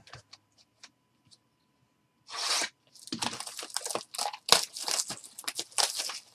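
Plastic wrapper of a Panini Hoops basketball card pack being torn open and crinkled by hand: one rip about two seconds in, then a quick run of crackling tears and crinkles.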